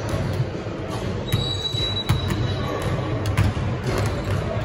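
Basketball game in a gym: a ball bouncing on the court in scattered knocks over a steady murmur of voices, with a brief high squeak about a second and a half in.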